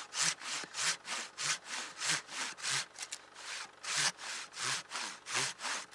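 Hand saw cutting through the wood of a tree stump, in quick, even back-and-forth strokes of about three a second.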